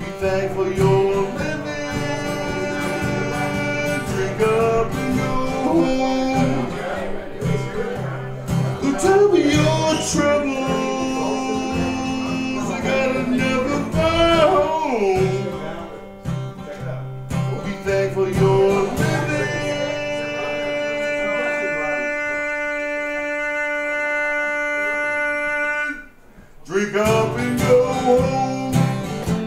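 Live band music led by plucked and strummed guitars. Near the end a long held chord rings out, breaks off for a moment, and the music starts up again.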